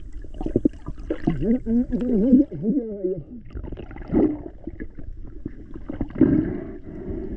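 Muffled underwater sound from a camera in the water: water moving and gurgling, with a wavering, muffled voice-like call heard through the water about a second in.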